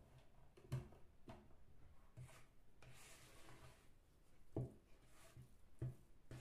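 Faint scraping and rubbing of a silicone spatula stirring thick cake batter in a mixing bowl, with a few light knocks against the bowl and beaters.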